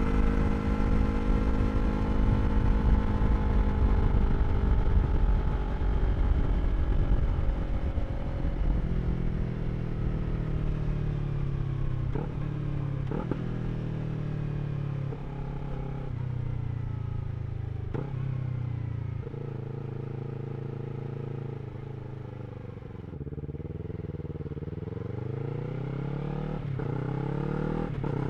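2023 Yamaha R3's parallel-twin engine through an Akrapovič slip-on exhaust, slowing with a long fall in pitch broken by a few short gear changes where the pitch steps, then accelerating with rising pitch near the end. Wind rumble on the microphone is heaviest at the start.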